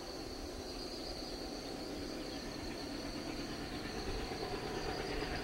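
A steady high-pitched insect buzz like crickets, over the faint rumble of an approaching train that grows slowly louder through the second half.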